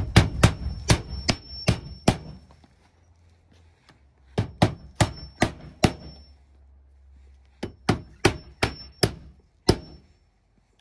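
Roofing hatchet driving roofing nails through an asphalt starter shingle into the roof deck. There are three runs of quick hammer blows, each about five to seven strikes, with a short metallic ring after some blows.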